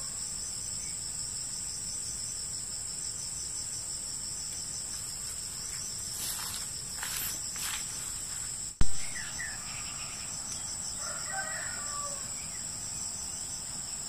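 Steady, high-pitched pulsing chorus of insects trilling in the forest undergrowth. A rooster crows once about eleven seconds in, and there is a single sharp click about nine seconds in.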